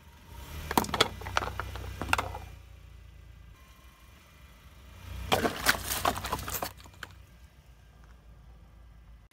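A car tyre rolling over a row of plastic bowls, cracking and crunching them in two bursts about three seconds apart, over a low rumble from the car. The second row is filled with water.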